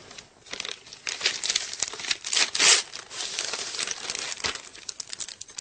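Paper gift wrapping crinkling and rustling as it is pulled open by hand, in irregular crackles that are busiest about halfway through.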